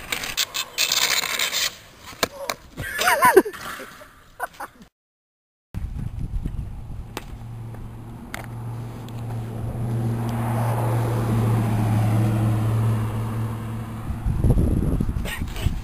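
Bicycle-mounted skis scraping and clattering along asphalt, with a short shout about three seconds in. After a break, a steady low hum swells and fades.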